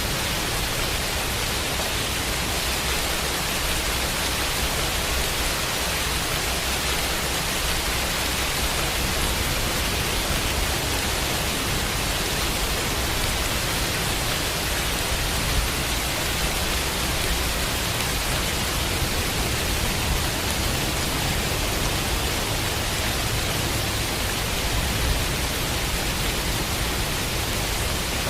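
Steady rain, a continuous even hiss, blended with white noise.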